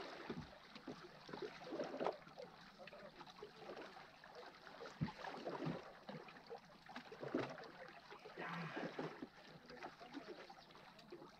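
Small waves lapping and splashing softly against shoreline boulders, with scattered small knocks.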